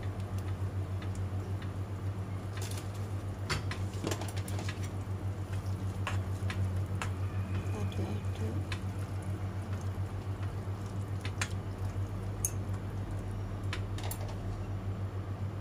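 Noodle soup simmering in a pan, with a steady low hum underneath. Now and then come short light clicks of chopsticks against the pan as the noodles are stirred.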